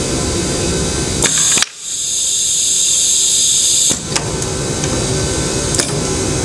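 Pneumatic swivel arm of a Festo modular production system at work. A valve clicks, then compressed air hisses loudly for about two seconds before cutting off, with a few smaller clicks, over a steady machine hum.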